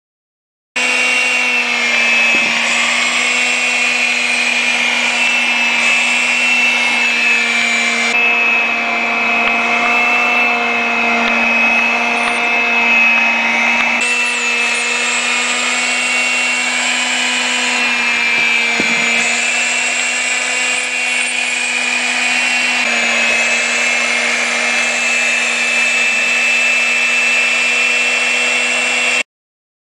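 Vacuum cleaner motor running steadily with a high whine over a rushing hiss. Its tone shifts slightly a few times. It cuts in about a second in and stops abruptly just before the end.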